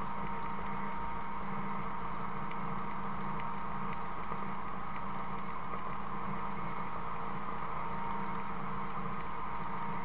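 Buffalo 7700 bale feeder running as it is towed across the field and processes a round bale: a steady mechanical drone with a constant whine.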